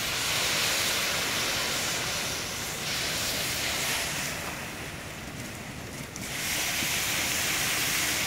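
Water from a hose hitting a hot steel anvil during its quench, flashing into steam with a steady loud hiss; the hiss eases off for a couple of seconds in the middle and comes back. The steel is still hot enough for the water to skate down its sides on a layer of its own vapour (the Leidenfrost effect).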